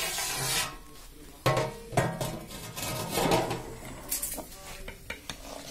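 Large metal cooking pot of chicken being uncovered and handled: a short hiss at the start, then several sharp metal clanks and scrapes of the lid and a ladle against the pot.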